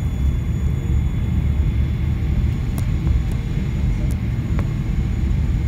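Steady low rumble of an airliner cabin as the jet taxis after landing: engine and airframe noise heard from inside the cabin, with a few faint clicks in the second half.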